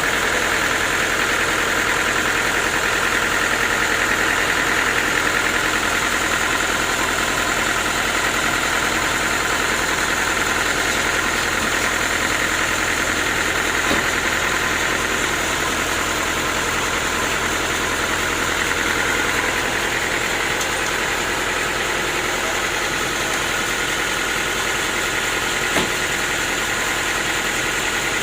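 Sawmill's engine running steadily, with a steady high whine, and one short knock near the end.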